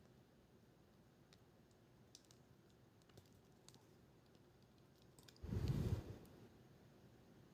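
Faint scattered clicks of small tools and parts being worked during hands-on disassembly of a GoPro camera. About five and a half seconds in there is one louder rustling noise lasting under a second.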